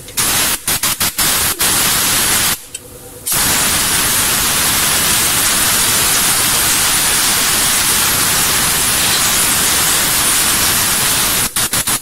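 Loud hissing blast of pressurised spray aimed at the diesel injection pump's front housing around the shaft seal. It comes in a few short trigger bursts, stops briefly, then runs as one long steady blast of about eight seconds and ends in a few quick bursts.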